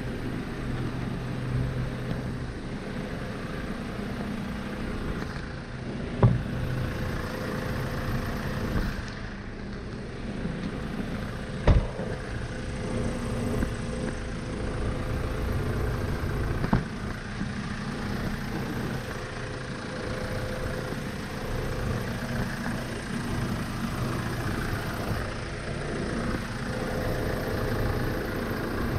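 2007 Hyundai Porter II's diesel engine idling steadily, with three sharp knocks about six, twelve and seventeen seconds in.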